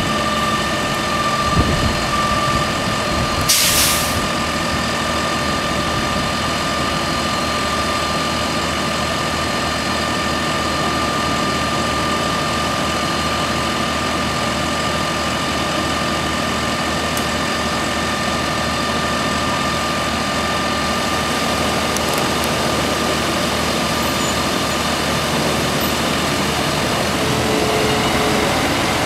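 Fire trucks' diesel engines running steadily, with a short burst of air hiss about three and a half seconds in. Near the end, water begins rushing from the tanker's dump valve into the portable tank.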